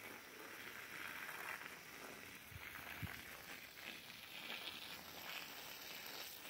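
Water from a garden hose spraying and splashing onto soil and leaves: a steady, faint hiss, with a soft low knock about three seconds in.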